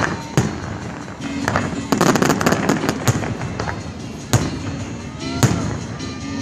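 Fireworks display: several single sharp bangs of shells bursting, with a run of rapid crackling about two to three seconds in.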